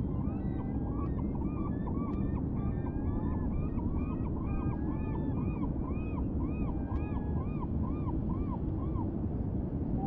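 A gull giving a long series of repeated yelping calls, about two a second, which stop about nine seconds in, over a steady low background rumble.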